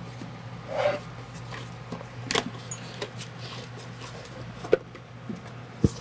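A few scattered light clicks and taps of hands working on computer parts over a steady low hum, with a sharper knock near the end.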